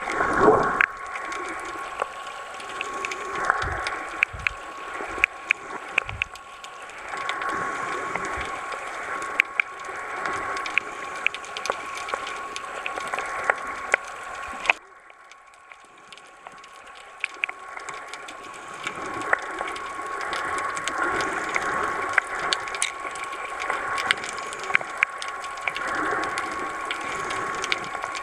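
Underwater sound picked up by a submerged camera: a dense, irregular crackle of clicks over a churning water wash, with a thin steady tone underneath. About halfway through it drops abruptly to a quieter wash, then builds back up.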